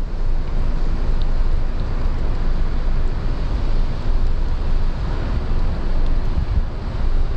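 Wind buffeting the microphone, a loud, unsteady low rumble with a hiss of street noise behind it.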